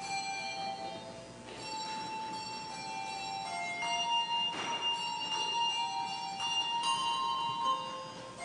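A handbell choir ringing chords of struck handbells, each chord ringing on and overlapping the next, growing louder about halfway through.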